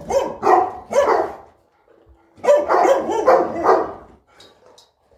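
A dog barking in two runs of about four barks each: the first at the very start, the second about two and a half seconds in.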